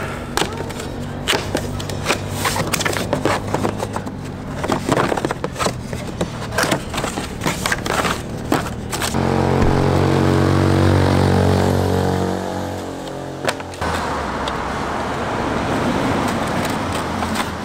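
Cardboard packaging and a pulp tray being handled and pulled open by hand, with many sharp clicks, rustles and scrapes. About nine seconds in, a road vehicle's engine passes close by, the loudest sound, fading after about four seconds into steady traffic noise.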